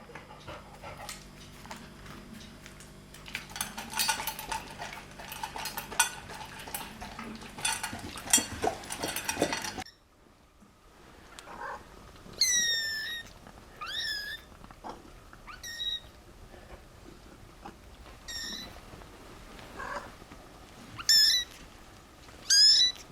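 About ten seconds of rustling and clicking, then, after a sudden cut, high-pitched kitten mews, about six short calls, some bending up or down in pitch.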